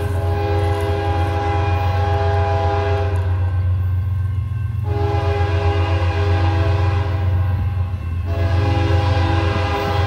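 Diesel locomotive air horn sounding a chord of several notes in long blasts for the grade crossing: one ending about three and a half seconds in, a second of about three seconds after a short gap, and a third starting just after it, over a steady low rumble.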